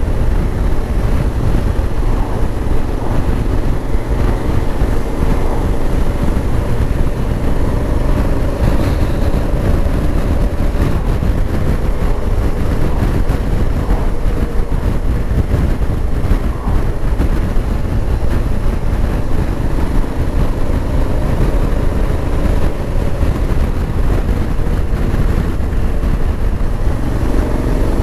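Honda Africa Twin's parallel-twin engine running at road speed under heavy wind rush over the microphone. The engine note drifts with the throttle and rises near the end as the bike accelerates.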